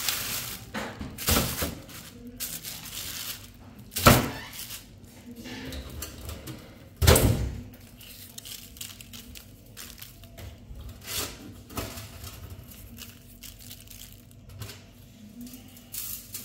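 Halved raw chickens being turned over in salt inside a plastic bag on a metal tray: the bag crinkles and rustles, with a few heavy thuds as the meat is flipped, the loudest about four and seven seconds in. Quieter, scattered rustling follows.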